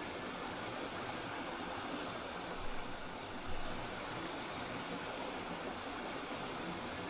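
Spring water flowing, a steady even rush, with two brief louder splashes a little under halfway through.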